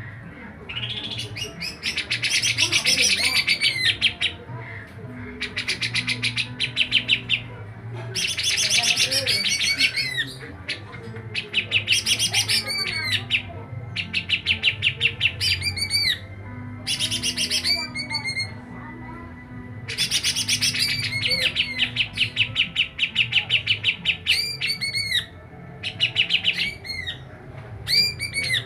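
A songbird singing in loud bursts of rapid repeated notes, each phrase about one to two seconds long with short pauses between, mixed with sweeping whistled notes.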